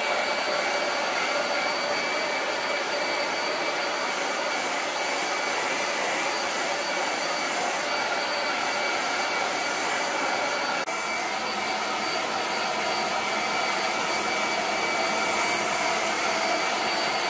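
Handheld hair dryer running steadily on high, blowing out a Bernese mountain dog's thick coat, with a constant high whine over the rush of air. The level dips briefly about eleven seconds in.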